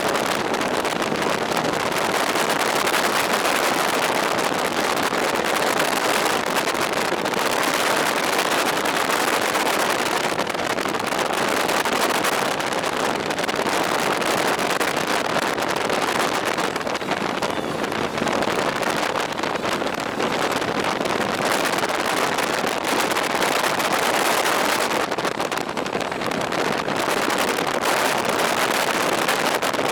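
Steady rushing wind and road noise on the microphone of a rider on a two-wheeler, rising and falling slightly in level.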